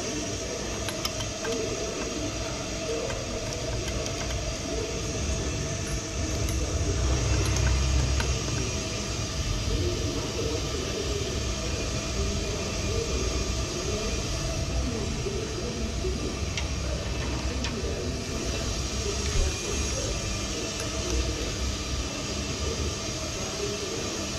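Ammco 4000 brake lathe running as its cutting bits take a final thou off a brake rotor. It is a steady mechanical running sound with a constant whine and an uneven rumble, which swells briefly about seven to nine seconds in.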